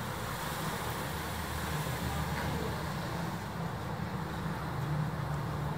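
Steady road traffic noise: an even low rumble with a faint hiss above it, no single passing vehicle standing out.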